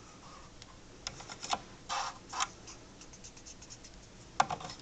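Scattered light clicks and scrapes from the handwheel of a vintage Singer Fashion Mate 360 sewing machine as its stop-motion knob is tightened back up after bobbin winding.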